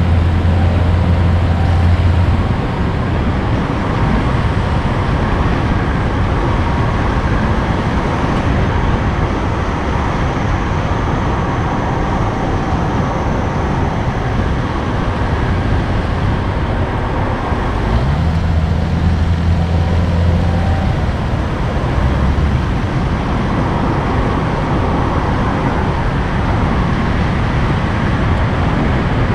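A road vehicle on the move: steady engine and road noise, with a low engine drone that stands out for the first couple of seconds and again about eighteen to twenty-one seconds in.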